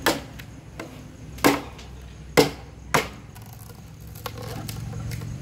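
A dao (machete) chopping into bamboo to shape a bamboo cooking tube. There are four sharp, irregularly spaced chops in the first three seconds, then a lighter tap.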